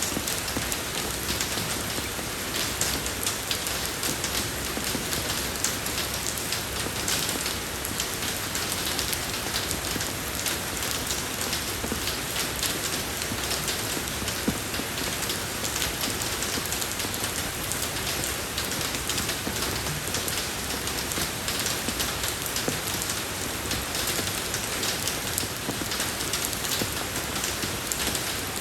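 Steady rain falling on a road, a dense even hiss full of close droplet ticks, with no change in strength.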